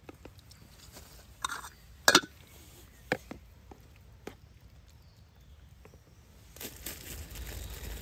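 Metal spoon scraping and clinking against a metal cooking pot and a wooden bowl while stew is served, with one sharp clink about two seconds in and a few lighter taps after it. A soft, even rustling noise rises near the end.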